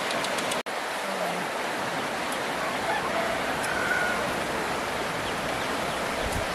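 Steady rushing of a river, with a few faint short calls above it. The sound drops out for an instant about half a second in.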